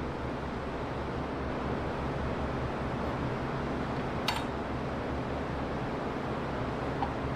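A steady machine hum, with a sharp click about four seconds in and a fainter click near the end.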